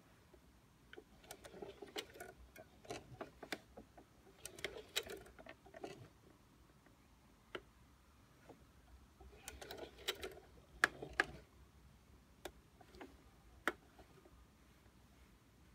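Singer Heavy Duty 4432 sewing machine with a walking foot stitching through leather slowly by hand-turned handwheel: faint, irregular clicks and ticks of the needle and feed mechanism in small clusters, with no motor hum.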